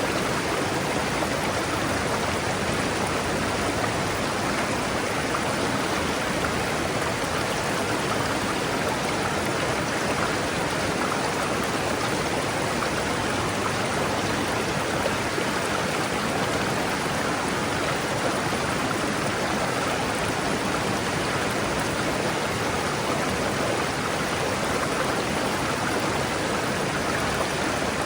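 River water rushing and splashing over rocks, a steady even flow.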